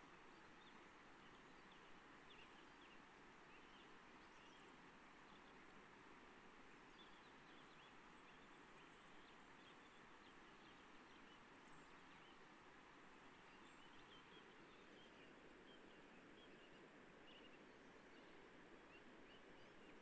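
Very faint birds chirping in short, scattered calls over a steady soft rush of a shallow river running over stones.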